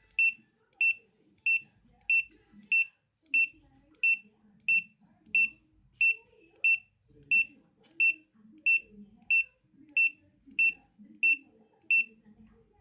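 A faulty electronic device's built-in alarm beeping nonstop, a short high beep about one and a half times a second. The constant alarm is a sign of the product's malfunction, along with its top light not working.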